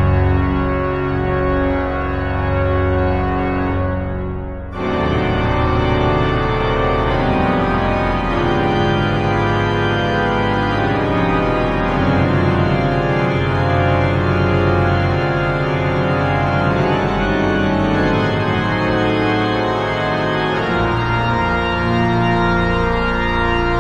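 Pipe organ playing full, sustained chords. The sound thins and drops briefly about four seconds in, then the full organ comes back in, with rapidly repeated low notes under the held chords.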